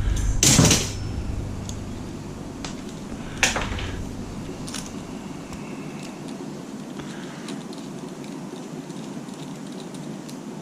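Hand tools and small metal parts being handled while an old game console is taken apart: a brief scraping clatter about half a second in, a sharp click about three and a half seconds in, and scattered light ticks, over a low steady hum that fades out about halfway.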